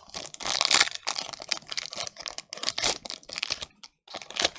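Foil Pokémon booster pack wrapper being torn open and crinkled in the hands: a run of rapid crackles and rips, with a brief pause about four seconds in.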